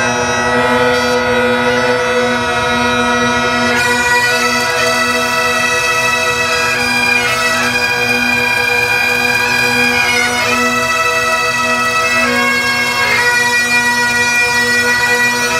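A pipe band's Great Highland bagpipes playing a tune: a steady drone under a chanter melody that moves from note to note.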